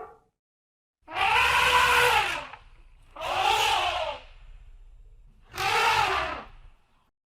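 Elephant trumpeting: three loud, brassy calls, each about a second long, rising and then falling in pitch, with short gaps between them.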